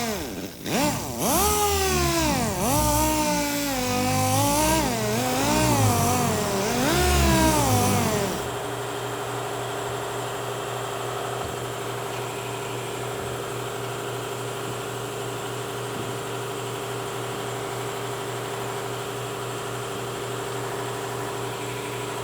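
Dynabrade dual-action sander wet-sanding clear coat with a 1500 grit Trizact pad, its pitch dipping and rising as it is pressed onto and eased off the panel. It stops about eight seconds in, leaving a steady hum.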